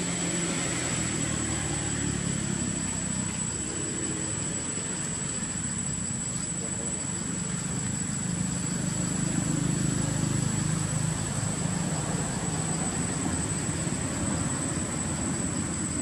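Low, steady engine hum of a vehicle, growing louder about nine seconds in and easing off again, over a constant thin high-pitched whine.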